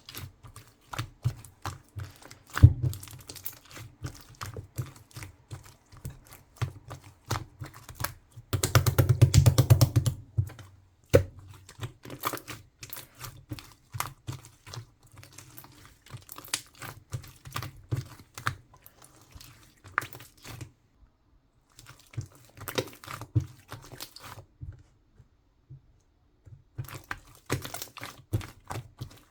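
Clay slime being kneaded and mixed by hand, giving quick runs of sticky clicks and crackles, with a denser, louder stretch of squishing about nine seconds in and a couple of short pauses later on.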